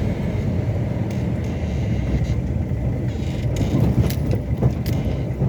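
Car driving on a rough road: a steady low rumble of engine and tyres, with a few sharp knocks and rattles between about three and a half and five seconds in.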